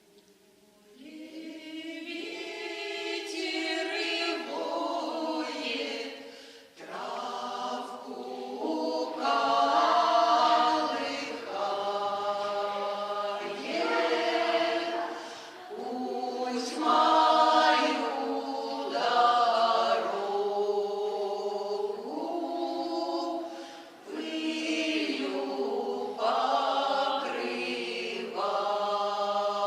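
A choir sings a Russian folk song in long held notes that change pitch every second or two, with no instruments showing beneath the voices.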